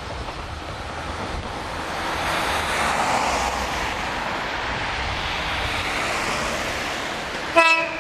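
A steady rushing noise that swells over the first few seconds, then a JR 115-series electric train sounds its horn near the end: a short, loud pitched blast.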